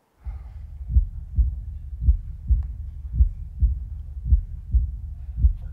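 Heartbeat sound effect: low double thumps (lub-dub), a pair a little over once a second, over a low steady hum.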